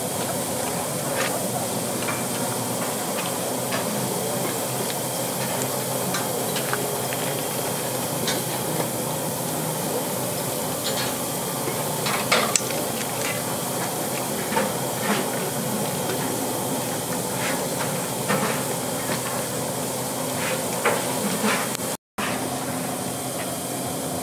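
D51 steam locomotive standing in steam, giving a steady hiss with a few scattered clicks. The hiss breaks off briefly near the end.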